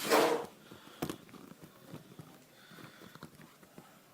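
Handling noise as a camera is picked up and repositioned: a loud breathy rush at the start, a sharp knock about a second in, then scattered small clicks and light rustling.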